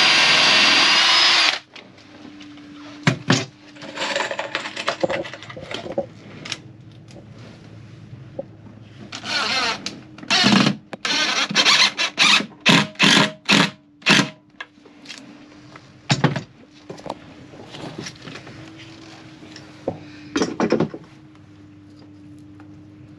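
A DeWalt cordless drill-driver driving screws into a wooden stringer. It makes one long run at the start, then a string of short trigger bursts, crowded together about halfway through. A steady low hum runs underneath.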